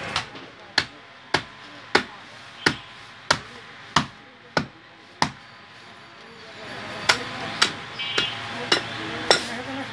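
A butcher's heavy cleaver chopping a cow head on a round wooden chopping block. There are eight evenly spaced chops, about one every two-thirds of a second, then a pause of about two seconds, then five more.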